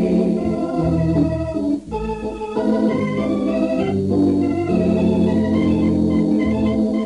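Organ music bridge marking a change of scene in a radio drama: held chords that shift every second or so, with a brief drop about two seconds in.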